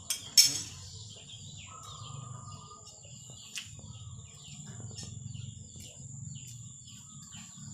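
Outdoor village ambience: scattered bird chirps and a short held bird note about two seconds in, over a steady high-pitched hum and a low rumble. A sharp click about half a second in is the loudest sound, with a smaller click a few seconds later.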